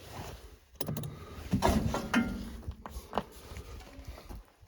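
Hand-work noises on a mini excavator's body: a few sharp metal clicks and knocks, and a short scraping, grating sound as a part or cover is worked loose.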